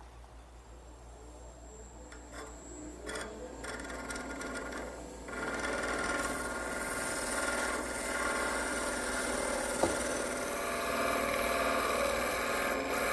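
Skew chisel taking a shear cut along a wooden bat spinning on a wood lathe: a steady hiss of wood being shaved, faint at first and much louder from about five seconds in, with one sharp tick near ten seconds.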